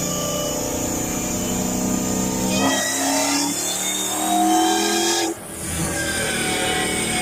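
Supercharged Hellcat V8 with a 3.8 L Whipple supercharger revving, its pitch climbing for about three seconds and then cutting off abruptly about five seconds in before running on steadily.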